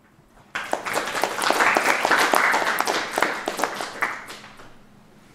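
Audience applauding: dense clapping starts about half a second in, is strongest in the middle, and dies away near the end.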